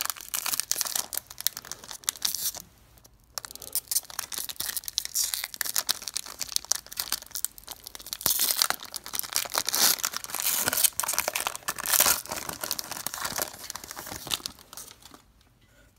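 Foil wrapper of a 2016 Panini Contenders football card pack crinkling and tearing as it is opened, with a short pause about three seconds in and quieting shortly before the end.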